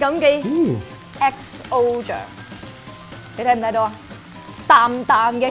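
Fried rice sizzling in a frying pan, with voices talking over it at intervals.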